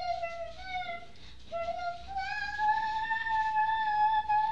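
A young child singing wordlessly in a high voice: a few short notes, then one long held note from about two seconds in that rises slightly.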